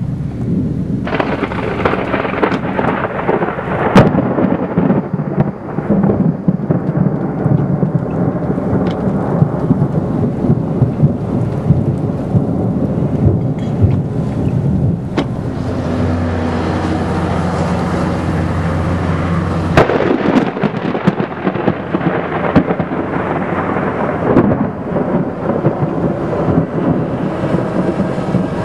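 Severe thunderstorm: heavy rain and strong gusting wind, with a low rumble throughout. The rain thickens about a second in, and a few sharp knocks stand out.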